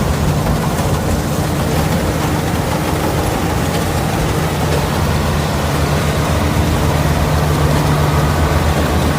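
Combine harvester engine running steadily, a low, even hum with a slight rise in level in the second half.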